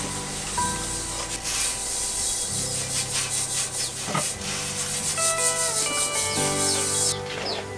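Repeated scraping strokes over soft background music with held notes; the scraping stops about seven seconds in.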